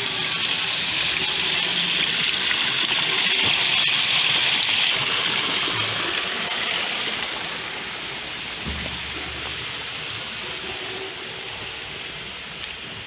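Small waterfall splashing down artificial rock boulders: a steady rush of falling water. It is loudest about four seconds in, then fades.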